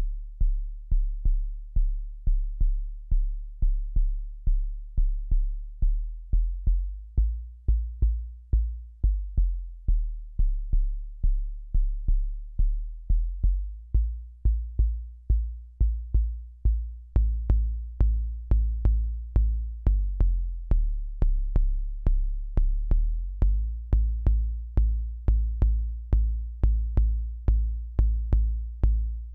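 Akai Rhythm Wolf analog drum machine playing a steady kick-drum pattern, about two beats a second. About halfway through, a pitched bass synth line and brighter, sharper hits join the kick.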